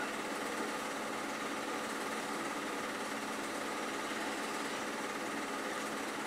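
A machine running steadily, a constant drone with a faint hum and hiss over it.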